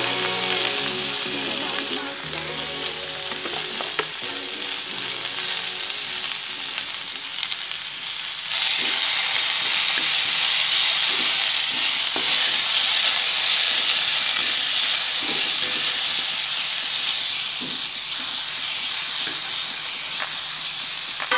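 Sliced chayote, tofu and chillies stir-frying in an aluminium wok: a steady sizzle, with a wooden spatula scraping and knocking against the pan. The sizzle grows louder about eight seconds in.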